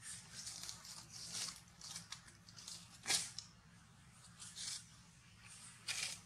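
Soft irregular crackling and crunching from a macaque mother and her nursing newborn, with the sharpest crunch about three seconds in and another just before the end.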